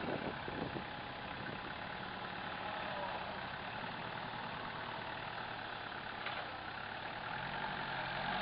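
Vehicle engine running steadily, with a deeper low rumble coming in near the end.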